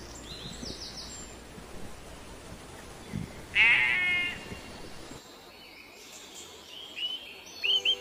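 A sheep bleats once, a single wavering call of under a second, over a steady outdoor background hiss. Near the end, short high bird chirps start up.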